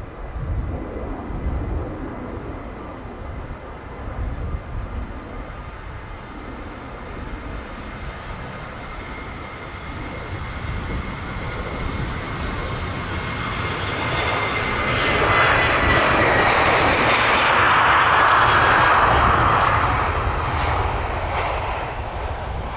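Airbus A340-600's four Rolls-Royce Trent 500 turbofans at takeoff power during the takeoff roll. A thin whine in the jet noise falls slowly in pitch as the airliner passes. The sound grows to its loudest about two-thirds of the way through, then starts to fade, with wind rumbling on the microphone early on.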